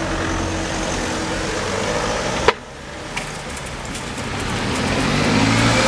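Level crossing barriers rising with a steady hum, ending in a sharp clunk about two and a half seconds in, after which the hum stops. Then a car engine approaches and grows louder as the car drives over the crossing.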